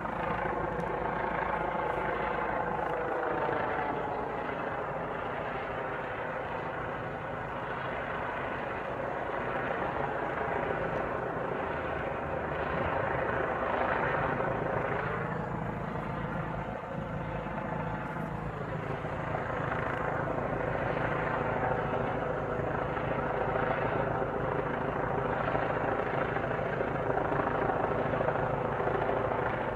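A continuous droning noise from the sky, a dense layer of many tones that slowly rise and fall in pitch over a steady low hum.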